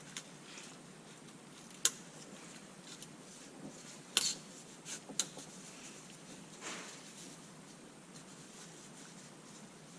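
A few sharp, short metallic clinks and knocks of tools or small metal parts being handled, the loudest about two seconds in and another just after four seconds, over a faint steady background.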